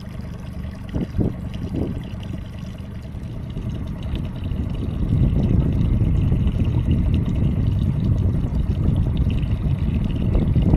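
Sea water lapping and splashing against a small boat's hull, with a low rumble that grows louder about five seconds in.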